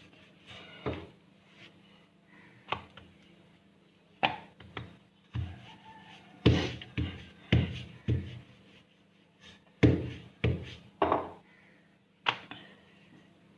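A wooden rolling pin rolling out a sheet of dough, knocking and thudding against the dough and board about a dozen times at an uneven pace, the hardest knocks in the middle.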